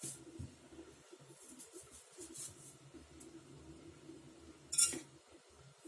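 Light clinks and rustling of loose tea being spooned into the filter of a glass teapot, with one short, louder rustling clink near the end.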